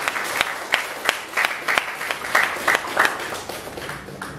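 Audience applauding, a run of many overlapping hand claps that thins out and grows quieter near the end.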